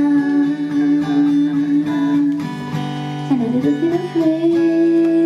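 Acoustic guitar strummed under a sung ballad line held in long notes, with the voice sliding up to a new held note about three and a half seconds in.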